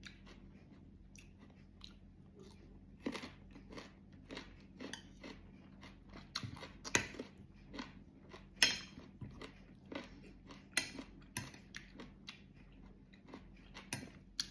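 Mukbang eating: crisp bites into mango dipped in fish bagoong and crunchy chewing, an irregular string of short crunches, a few louder bites near the middle.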